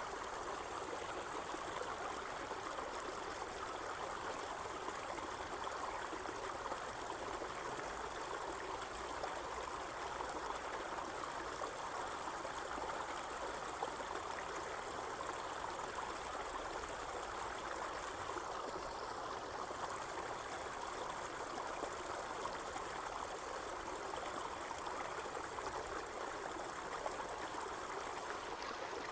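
Irrigation water flowing steadily through a field, an even rushing and trickling.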